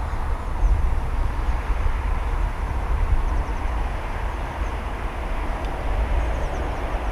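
Steady low outdoor rumble with a few faint bird chirps over it.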